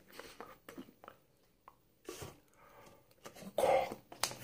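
A man's short throat-clearing cough, a brief rasping burst about three and a half seconds in, followed by a sharp click. Before it there are only faint small sounds.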